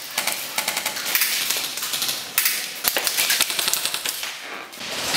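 Airsoft guns firing in rapid full-auto bursts, a fast string of sharp clicks that comes in several bursts and eases off briefly near the end.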